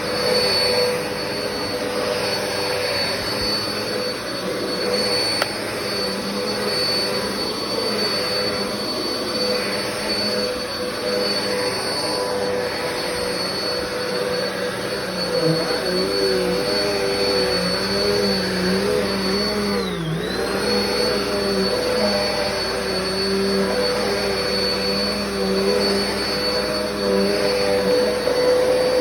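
Black and Decker vacuum cleaner running steadily with a high motor whine, its pitch dipping briefly about two-thirds of the way through before recovering.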